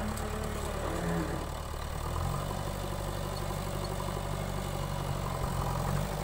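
JCB 3DX backhoe loader's diesel engine running steadily, its pitch stepping up a little about two seconds in.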